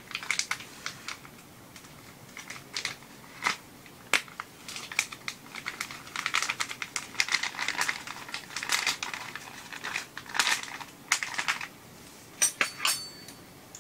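Plastic food bag crinkling and rustling as it is handled, in irregular bursts, with a few short clicks near the end.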